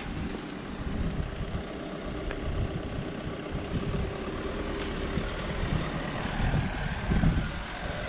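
Street traffic: a motor vehicle's engine running close by, over a steady wash of traffic noise and an uneven low rumble.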